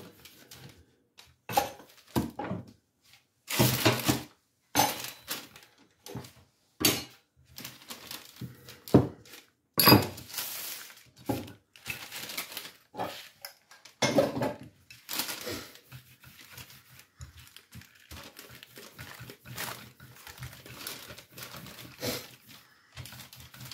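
Wooden rolling pin working crumbly dough on parchment paper, the paper crinkling and rustling in irregular strokes, loudest about ten seconds in.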